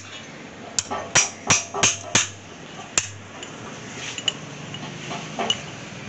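Hammer striking a steel drift against a motorcycle's steering head: five quick sharp metallic blows, one more a moment later, then a couple of lighter knocks, driving out the old steering-head bearing cone.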